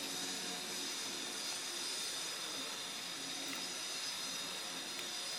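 Steady hiss of background noise, with no distinct events.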